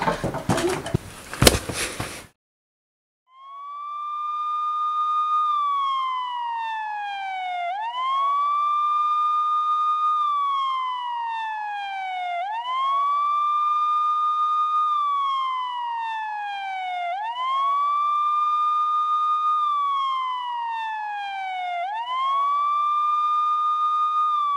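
Clattering knocks with one sharp bang in the first two seconds, then, after a second of silence, an emergency-vehicle siren wailing: each cycle rises quickly, holds its pitch for about two seconds, then slides slowly down, repeating about every four and a half seconds.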